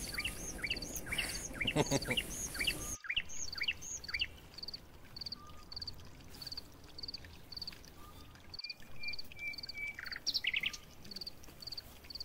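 Night insects, crickets, chirping in a steady high rhythm of about two to three chirps a second, with other rising and falling calls and rustling in the brush over the first three seconds.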